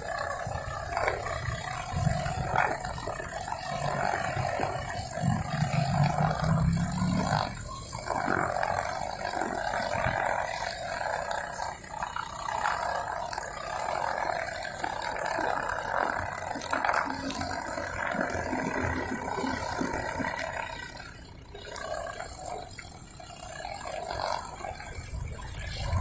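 Honda GX35 four-stroke brush cutter running at working speed with nylon trimmer line, its level rising and falling as it works, with a short drop about 21 seconds in.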